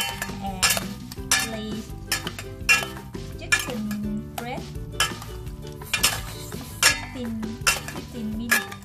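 Metal spoon and utensil clinking and scraping against a stainless steel bowl while raw chicken pieces are tossed in marinade, with repeated sharp clinks.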